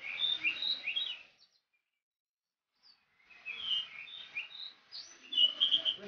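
Oriental magpie-robin (kacer) singing: two phrases of quick, varied whistled notes, separated by a silent gap of about a second and a half.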